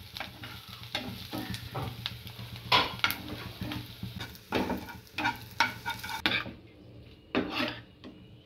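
Chopped onions sizzling in oil in a frying pan, stirred with a metal spoon that scrapes the pan in irregular strokes. About six seconds in, the sizzle stops suddenly and only the spoon's strokes go on as it stirs fried noodles in the pan.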